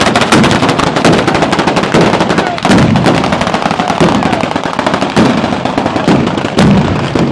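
A street firecracker barrage (a southern Italian festival batteria) going off: a dense, rapid, machine-gun-like string of bangs and crackles, with louder bangs every second or two.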